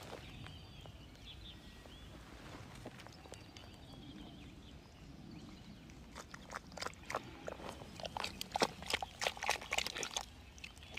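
Fingers digging and scraping in wet mud and gravel: after a quiet stretch, a quick run of wet squelches and gritty crackles starts about six seconds in and stops shortly before the end.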